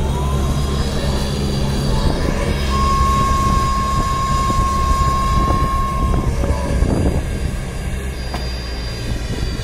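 Jet aircraft turbine whine over a steady low hum, with a clear whistling tone held from about three to six seconds in.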